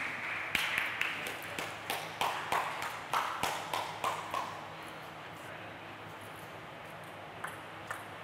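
Table tennis ball clicking sharply on table, bat and floor: a quick, uneven series of clicks with a short ring of the hall after each. It stops about four and a half seconds in, and two faint clicks follow near the end.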